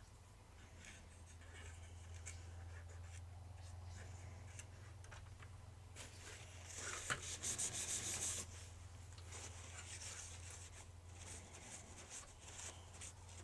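Faint rubbing and scratching of hands working on a small plastic toy part, with a louder run of quick scratchy strokes a little past the middle. A low steady hum runs underneath.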